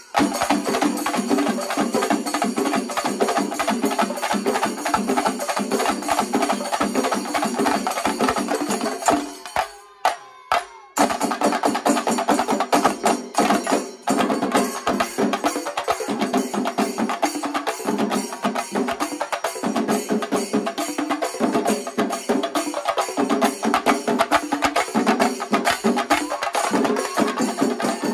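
Shinkarimelam percussion: rapid, dense chenda drumming with elathalam cymbals. The playing drops out for about a second and a half roughly ten seconds in, then resumes.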